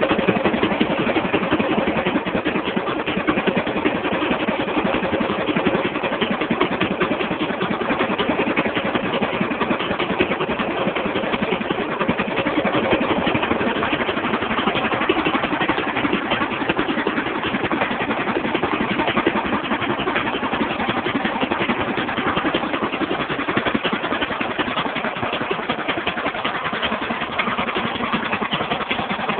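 Racing lawn mower engine running steadily through open straight exhaust pipes, a fast, even, rapping exhaust note. The engine has just been rebuilt.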